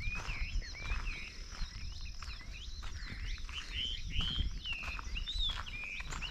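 A dense outdoor chorus of short, high chirping and whistling calls from small animals, several notes a second, with footsteps on a gravel track underneath.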